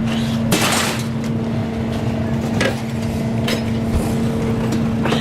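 A motor vehicle engine running steadily, with a brief rushing noise about half a second in and a few sharp clanks scattered through.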